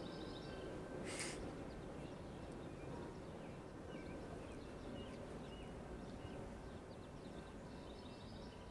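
Faint outdoor ambience: a low steady rumble, with small birds chirping on and off throughout. A short hiss sounds about a second in.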